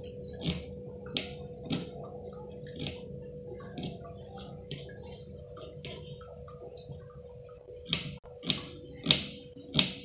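Kitchen knife slicing shallot and garlic cloves, its blade knocking sharply on the cutting board. There are about five separate knocks in the first few seconds, a pause, then four quicker ones near the end.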